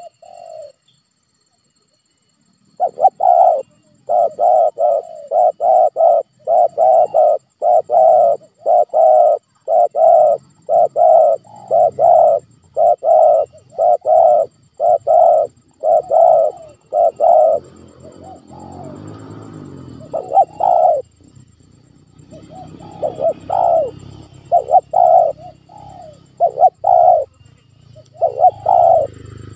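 Spotted dove cooing: a long run of evenly spaced coo notes, about two a second, with a break of a few seconds past the middle before the notes resume. A low rumble runs underneath in the later part.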